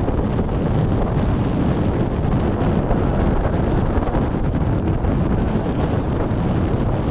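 Wind rushing over the microphone in a paraglider's flight airflow, loud and steady with a constant low buffeting.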